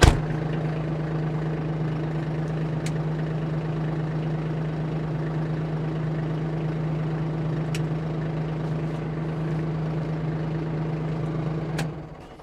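Steady machine hum from the Kubota LX2610 cab tractor, one even pitch with overtones, starting abruptly and cutting off near the end.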